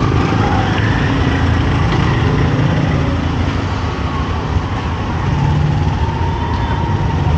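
Steady street noise with motor vehicle engines running, like passing traffic.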